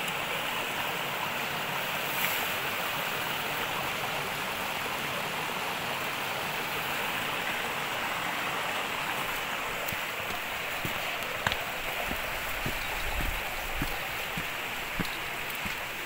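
Water rushing steadily over rocks in a mountain stream below a waterfall. In the second half, a few short sharp knocks are heard over it.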